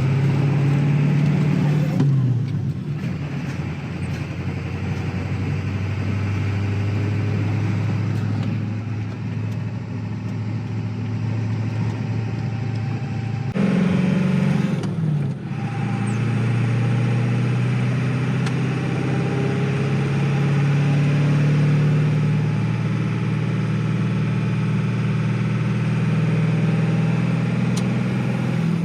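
Tow vehicle's engine running as it drives, pulling a trailer. The engine note climbs slowly, then drops back at gear changes about two seconds in, around fourteen seconds in, and near the end.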